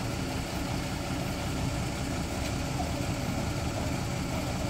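Vehicle engines idling steadily, a low, even engine sound with no revving.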